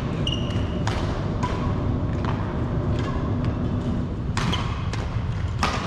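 Badminton rally: a series of sharp racket strikes on the shuttlecock, spaced roughly a second apart with a longer gap in the middle, and a brief shoe squeak on the wooden court just after the first hit. A steady low hum of the hall runs underneath.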